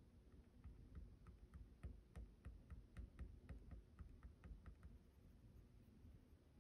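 Faint, quick ticks of a black colored pencil making short strokes on toned paper, about three or four a second, stopping a little before the end.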